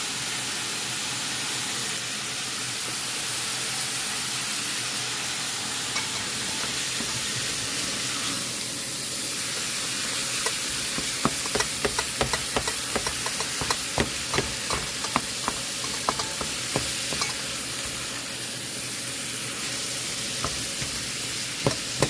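Ground chuck sizzling as it fries in a pan, a steady hiss. From about ten seconds in, a utensil clicks and scrapes against the pan many times, stirring and breaking up the meat, then again briefly near the end.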